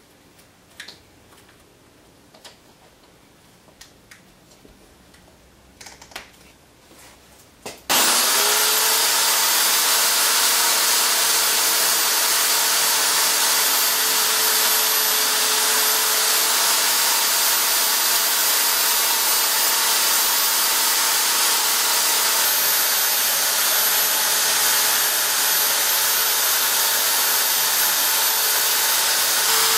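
A few light knocks and clicks of handling. About eight seconds in, a power tool's electric motor switches on, spins up and runs loud and steady.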